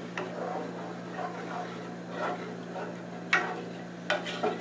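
A wooden spoon stirring a thin chicken-stock sauce in a metal pot, swishing through the liquid and knocking against the pot a few times with sharp clacks, the loudest about three seconds in.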